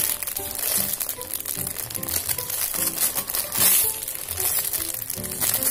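Background music with a melody, over the crinkling of a clear plastic bag as the foam squishy toy sealed inside it is squeezed; the loudest crinkle comes about three and a half seconds in.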